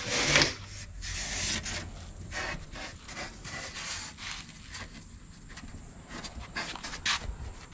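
Irregular rubbing and scraping of a gloved hand working along the rail of a surfboard where the fiberglass has been cut away, with a louder burst about half a second in.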